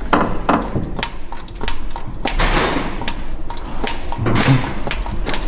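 Hand-priming lever of the Alvis TD21's fuel pump being worked, a sharp click or knock with each stroke, about one every half second to second, as fuel is pumped up to the carburettors.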